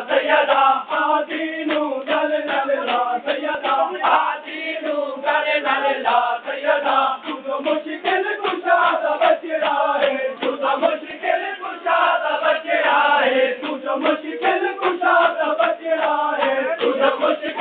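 A crowd of men chanting a noha in unison, with a steady rhythm of hands slapping on bare chests in matam keeping the beat.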